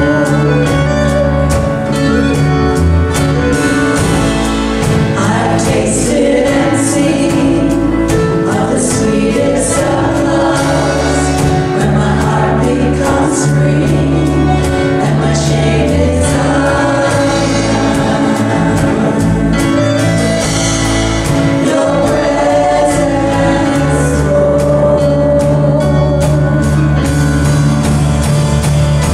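Worship music: a group of voices singing over instruments with a steady beat and bass.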